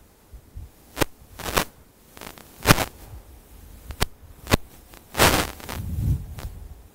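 About half a dozen sharp, irregularly spaced taps of a stylus on an interactive display screen as slides are paged through, then a longer rustle with a low rumble just past five seconds in.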